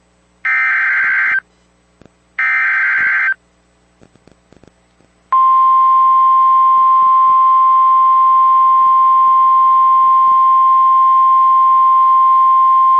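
Two bursts of NOAA Weather Radio SAME alert-header data, about a second each with a second's gap, then about five seconds in the single steady 1050 Hz warning alarm tone begins and holds. Together they signal that a new emergency alert, here a tornado warning, is about to be read.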